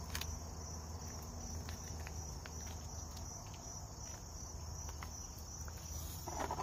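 A steady, high-pitched insect trill, pulsing evenly, over a low background hum. A short rustle near the end as a hand picks up a piece of rye bread.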